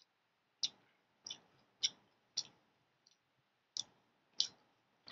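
Faint mouth sounds of someone chewing food: a series of short, sharp smacking clicks, roughly one every half second, with a gap near the middle.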